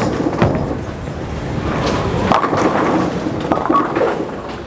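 Urethane bowling ball rolling down a wooden lane, then knocking down the pins for a strike, with scattered clacks and knocks over a steady rolling rumble.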